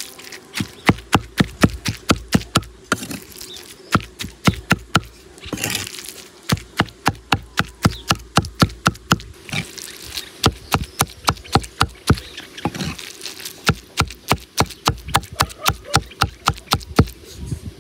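Meat cleaver chopping raw fish into mince on a wooden log chopping block: quick, even knocks of the blade on the wood, about four a second, with a few short pauses.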